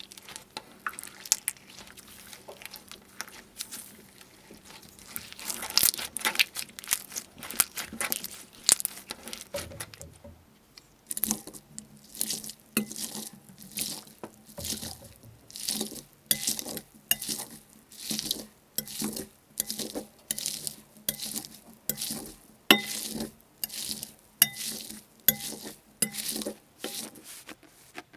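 Slime being squeezed and pressed by hand, with sticky crackling clicks at first. After about ten seconds it turns into a steady run of wet squishes, a little more than one a second.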